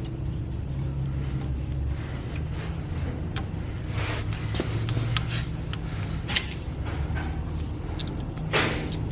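Light metallic clicks and ticks of an 8-32 tap being worked into a drilled hole in a Chevy 292 cylinder head, over a steady low hum. A brief hiss or scrape comes near the end.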